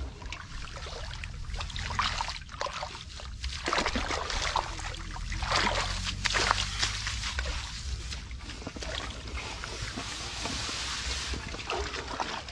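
Rice plants and grass rustling and crackling as hands push through and pull at them, over a steady low rumble.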